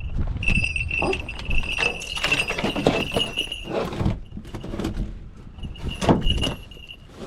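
Falconry bell on a Harris's hawk ringing steadily as the hawk tugs and tears at its rabbit, with scraping, rustling and thumps; the ringing stops about four seconds in and starts again near the end.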